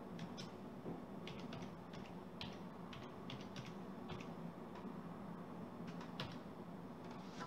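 Keys tapped one by one on a Toshiba laptop keyboard, a dozen or so faint, unevenly spaced keystrokes.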